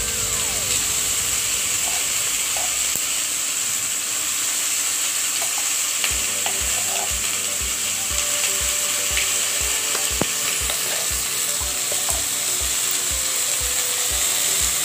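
Ground gongura (pulicha keerai) paste frying in hot oil with a spluttered mustard-and-cumin tempering in a kadai: a steady sizzle with scattered light clicks.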